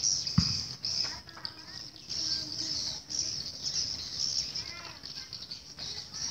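Swiftlets twittering: a dense, unbroken chorus of high chirps with some lower, gliding chirps among them. A single low thump comes about half a second in.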